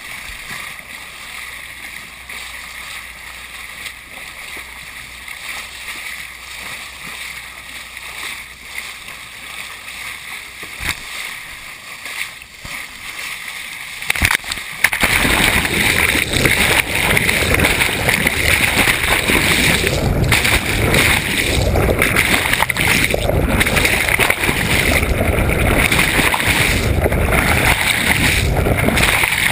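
Sea water rushing and splashing around a camera held at the side of a moving boat. About halfway through, the sound turns suddenly much louder and denser, a steady underwater rush as the camera goes beneath the surface.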